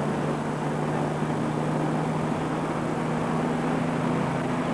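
A car driving at a steady speed, heard from inside: an even engine hum with steady road noise, and no change in pace.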